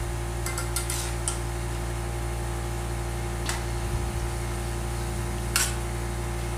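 Metal spoon knocking and scraping against a wok while stirring chicken pieces in sauce: a quick run of clicks about a second in, then single knocks midway and near the end. A steady low hum runs underneath.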